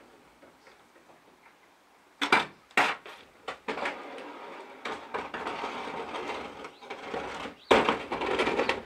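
Land Rover body parts being handled and loaded: a few sharp clattering knocks, then a long scraping, sliding noise, and a louder clatter near the end.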